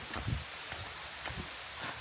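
Footsteps in flip-flops on trail steps, a few soft irregular thumps, over a steady background hiss.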